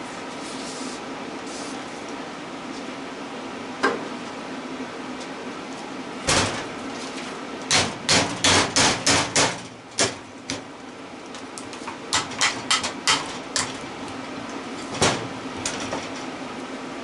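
Hammer blows on the WD-40-lubed shaft of an electric motor being scrapped, trying to knock the shaft free. There are single strikes, then a quick run of about six blows, then a run of lighter taps, over a steady hum. The shaft does not come free, and he turns to a grinder afterwards.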